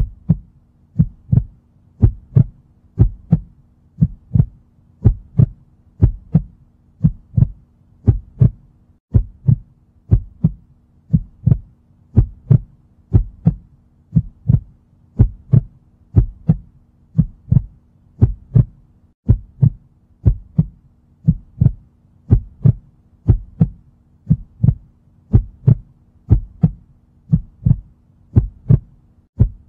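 Heartbeat: a steady double thump, lub-dub, about once a second, with a faint low hum underneath.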